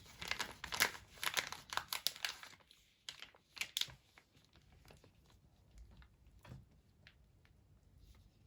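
Thin plastic crinkling and rustling as it is handled, a dense run of crackles for about four seconds, then only a few faint scattered clicks.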